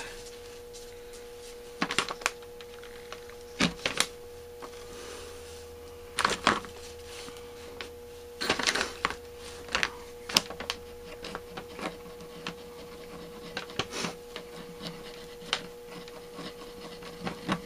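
JB Weld two-part epoxy being mixed on a small card: scattered short scrapes and taps, with a steady faint hum underneath.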